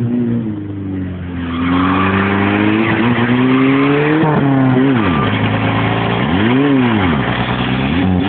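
Mitsubishi Colt's engine revving hard, heard from inside the car: its pitch climbs over the first four seconds, then rises and falls several times as the throttle is worked. From about a second and a half in, a steady hiss of tyres spinning and sliding on loose ground runs under it.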